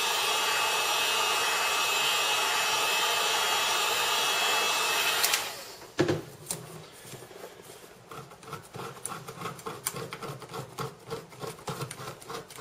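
Heat gun blowing steadily on the bezel's adhesive tape, switched off about five seconds in. A single knock follows. Then come quick, repeated scraping strokes of a thin metal tool working the adhesive along the bezel edge.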